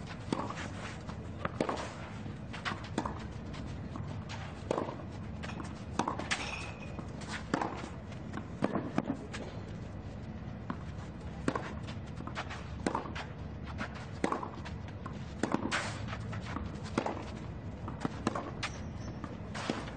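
Tennis ball struck back and forth in a long baseline rally on a clay court, a sharp racket hit about every one to one and a half seconds, with players' footsteps on the clay between the hits.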